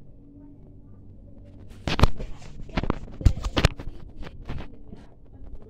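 Handling noise from a handheld phone being swung around: rubbing and sharp knocks on the microphone, loudest about two seconds in and again around three and a half seconds, over a faint steady hum.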